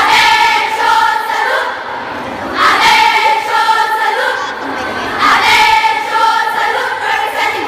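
A group of Girl Scouts chanting a cheer in unison, in three loud sung phrases with short gaps between them.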